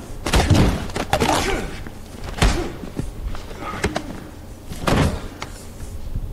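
Movie fight sound effects: a string of heavy blows and thuds, about half a dozen separate hits spread a second or so apart.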